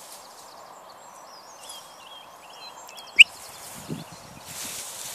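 Steady swishing rustle of tall grass as a dog runs through it, with birds singing in the background. About three seconds in a short, sharp, high squeak stands out as the loudest sound, and the rustle swells near the end.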